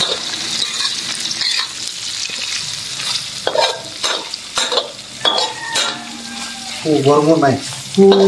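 Fried-rice ingredients (shallots, garlic, fermented fish and dabai fruit) sizzling in hot oil in a wok, stirred with a metal spatula that scrapes and taps against the pan in quick irregular strokes.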